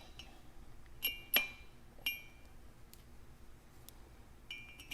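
Metal bolts clinking against the regulator's spring tower as they are put back in: a few sharp clinks with a short ring, about a second in and again near two seconds, and more near the end.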